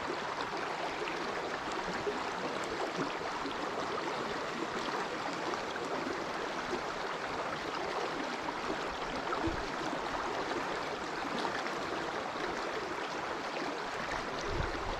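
Small stream flowing steadily over shallows, an even rushing wash of water, with a couple of faint low bumps partway through.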